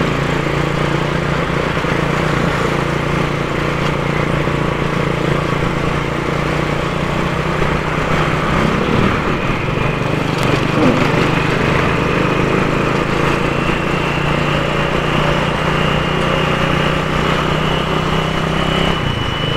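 Motorcycle engine running steadily while riding at cruising speed, with wind and road noise.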